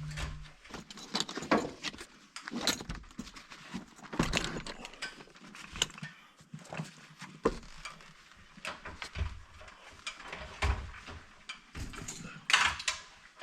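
A steady low hum cuts off just after the start, followed by irregular clicks, knocks and light clattering, like tools or parts being handled.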